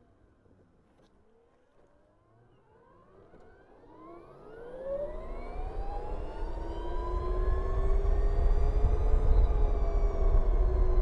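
BMW CE 04 electric scooter's motor whine rising in pitch as it pulls away from near quiet, climbing from about four seconds in, then levelling off and easing slightly near the end. Wind and road rumble grow underneath as speed builds.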